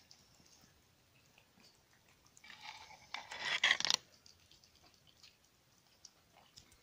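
Kittens chewing wet cat food, heard as faint scattered small clicks. About two and a half seconds in comes a loud scraping, rustling noise lasting about a second and a half, after which the faint chewing clicks return.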